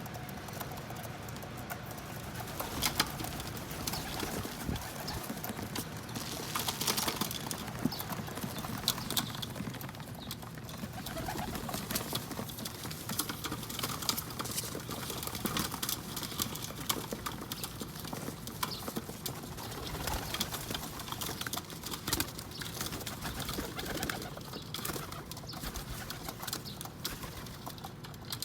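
Pigeons cooing on a rooftop, with many scattered light taps and clicks throughout.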